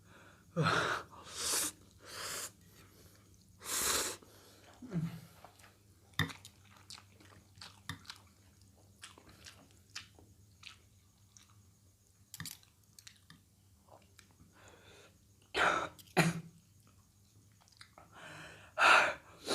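A person chewing spicy instant fried noodles, with small wet mouth clicks, broken by several loud short bursts of breath and coughing, clustered near the start and again near the end.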